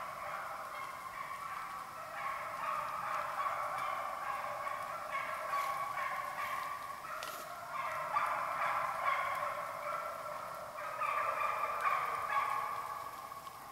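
Pack of deer hounds baying in chorus as they run a deer, many overlapping voices without a break, fading near the end.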